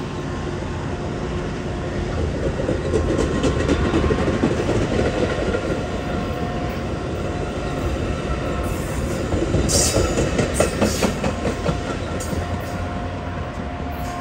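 Metra commuter train of bilevel gallery cars rolling past with a steady rumble. Clickety-clack of the wheels over the rail joints grows sharper and busier for a few seconds in the second half.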